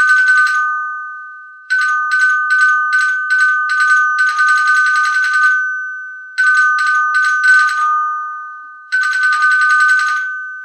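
A metal bell rung in bursts of rapid strikes, three or four times. Each burst rings on the same two close notes and fades out before the next.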